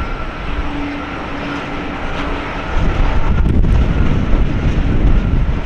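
Boeing 777-200 airliner during pushback: a steady jet whine over a low rumble, which grows louder about three seconds in.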